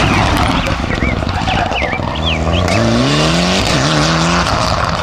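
Mitsubishi Lancer Evolution X rally car's engine revving hard as the car drives past on tarmac. The pitch climbs steadily a little after two seconds in, dips briefly near the middle, then holds. A few brief high chirps come in the first half.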